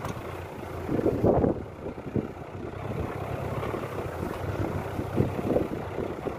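Off-road vehicle engine running as it drives over a rough dirt track, with irregular knocks and jolts from the bumpy ride.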